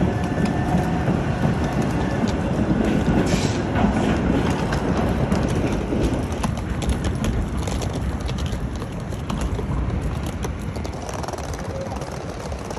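Rolling suitcase wheels rattling over paving stones, a steady clatter of many small clicks over street noise.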